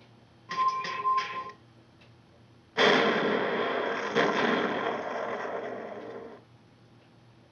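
A short clatter of clicks with a ringing tone, then a loud explosion sound effect that hits suddenly and rumbles off over about three and a half seconds before cutting out.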